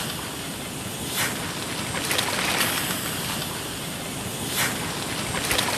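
A Strandbeest made of plastic electrical tubing walking over sand in the wind: a steady rushing hiss with about five sharp clacks at uneven intervals.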